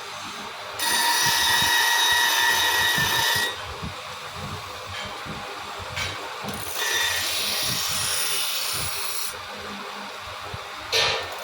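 Power grinding tool working on steel scissors in two passes of about two and a half seconds each, a steady whine over a gritty hiss, quieter between passes. A sharp knock near the end.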